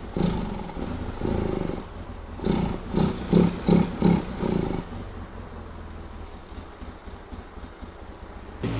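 A 2002 Polaris Sportsman 700's twin-cylinder engine running and being blipped with the throttle in several short, quick surges, then settling to a quieter, steady run. The engine bogs, which the owner thinks could be air leaks.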